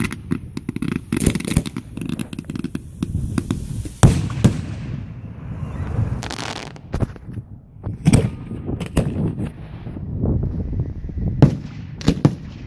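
Boxes of consumer fireworks going off uncontrolled after wind-blown sparks set one alight: a few seconds of rapid crackling, then a string of separate bangs, the loudest about four seconds in, with a hissing rush around six seconds.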